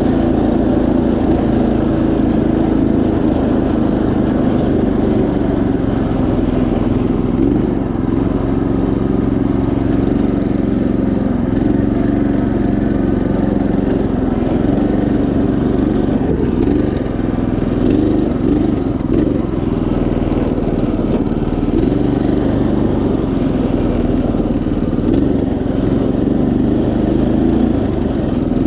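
Predator 212 single-cylinder engine on a riding mower running steadily while the mower drives along, a loud even drone with only small rises and dips.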